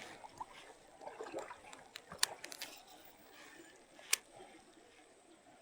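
A few faint sharp clicks over a quiet background, the clearest about four seconds in.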